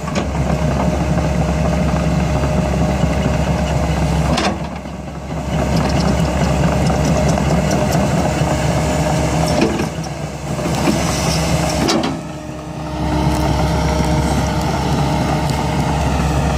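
Heavy diesel engines of a tracked excavator and a tractor running under load while pulling a drainage tile plow, a steady low drone that drops briefly twice. A few sharp metallic clanks are heard, about four, ten and twelve seconds in.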